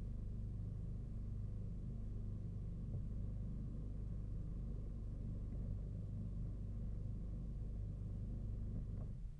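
Small motorboat's engine running steadily at low speed, a low even hum. It drops off abruptly near the end, as if throttled right back or cut.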